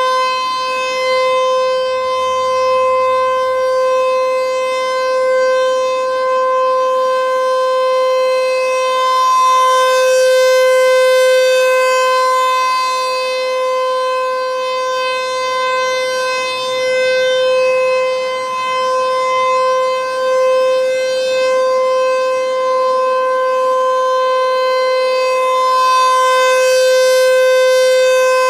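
American Signal T-128 rotating electromechanical siren sounding a steady, unwavering tone during a scheduled warning-system test. The tone slowly swells and fades as the turning horn sweeps toward and away, loudest about a third of the way in and again near the end.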